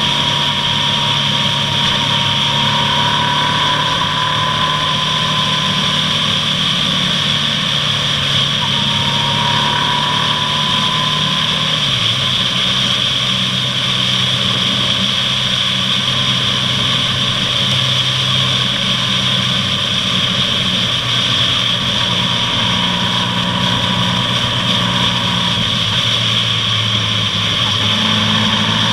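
Honda ST1300's V4 engine running at a steady cruise under a continuous high hiss of wind and road noise. Its note briefly drops in pitch and picks up again about twelve seconds in.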